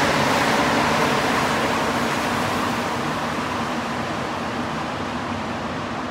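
Rubber-tyred Montreal metro train pulling out of the station and receding into the tunnel, its running noise fading steadily.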